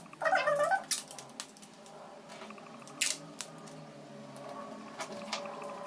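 Paper pattern pieces being handled on a sheet of paper, with a short loud crackle about a quarter of a second in, then light rustling and scattered sharp taps and clicks.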